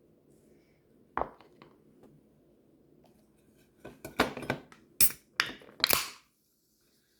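Handling noises of dishes or utensils: one sharp knock about a second in, then a quick run of loud knocks and clinks.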